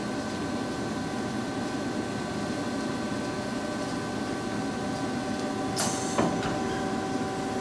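Lucas 542B-84 horizontal boring mill running: a steady machine hum with several constant tones over a noisy drone. A short rattle and then a sharp knock come about six seconds in.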